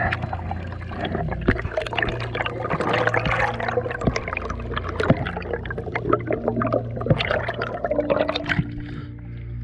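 Bubbling, gurgling and crackling water picked up by an underwater camera, with air bubbles rising past it. The dense crackle thins out near the end.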